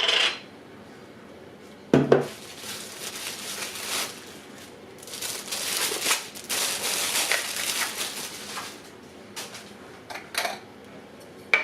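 Handling noise of a DSLR camera body and kit lens being unpacked: a sharp knock about two seconds in, a stretch of plastic rustling and crinkling in the middle, and small clicks of the lens caps near the end.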